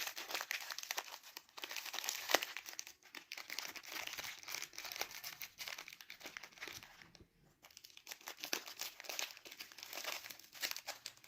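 A pet parrot biting and tearing at crinkly material with its beak: a dense run of irregular crackles, crunches and snaps, with a brief pause about seven seconds in.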